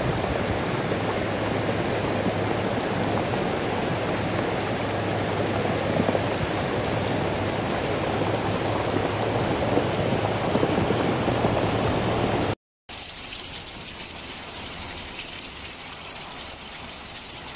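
Muddy floodwater rushing in a wadi in spate, churning over stones with a steady, loud rush of water. About twelve seconds in the sound cuts to a quieter, steady hiss of heavy rain falling.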